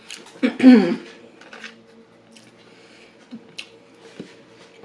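A brief vocal sound from the eater in the first second, followed by quiet mouth and handling sounds: a few small clicks and crinkles as a chicken nugget is picked out of its cardboard box. A faint steady hum runs underneath.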